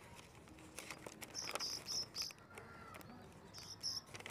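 Paper user manual rustling as it is handled and a page is turned, with scattered soft clicks. Two quick runs of short high chirps sound over it, about five chirps a little after one second in and two more near the end.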